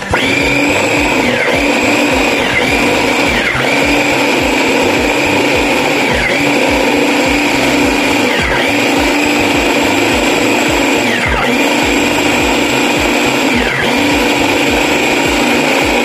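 Electric blender switched on and running steadily on chopped pechay and celery, its motor whine dropping briefly in pitch about seven times and recovering each time.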